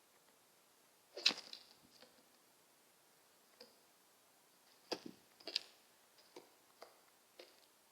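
Blue jays pecking and tapping with their bills, probably at food: a string of sharp, irregular taps and clicks. The loudest comes about a second in, and a quick cluster follows around the middle.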